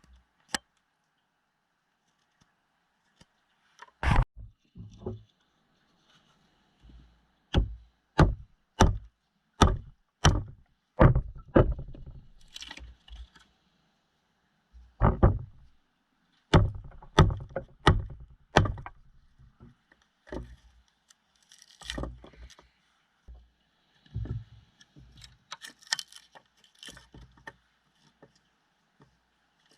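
Bushcraft knife being struck into wood, a sharp wooden knock with each blow, coming in runs about half a second to a second apart with short pauses, and fainter scraping and knocking between the runs.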